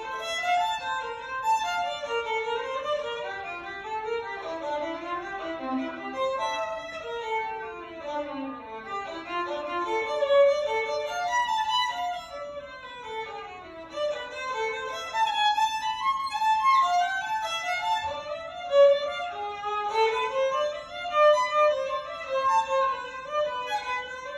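Solo violin playing fast runs of notes that climb and fall in quick scale-like passages.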